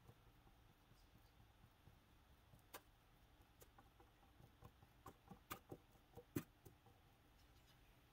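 Near silence with faint scattered clicks and taps from a small paintbrush dabbing paint onto textured miniature stucco. One tap comes about three seconds in, then a quick cluster of them a couple of seconds later.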